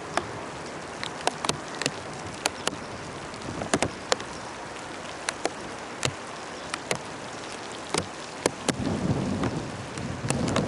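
Steady rain falling, with large drops landing close by as sharp, scattered taps. In the last two seconds a louder low rumble builds under the rain.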